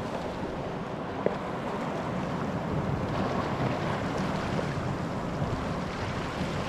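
Steady wash of sea surf on a rocky shore, with a single faint click about a second in.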